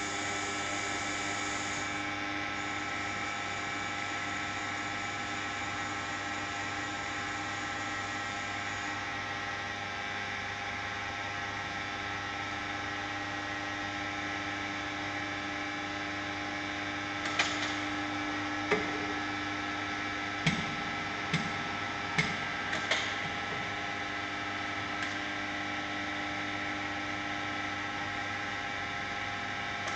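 1512F3 CNC vertical turning lathe running: a steady machine hum with several steady tones. About halfway through comes a short run of sharp clicks and knocks, while the tool turret shifts position.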